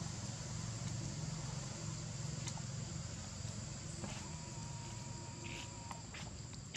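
Steady high-pitched insect drone over a low steady rumble, with a few faint clicks.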